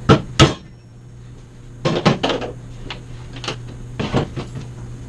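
Hammer knocking the old shaft seal out of a pool pump's seal plate: two sharp whacks right at the start, then a run of lighter knocks and clatters as the seal parts come loose.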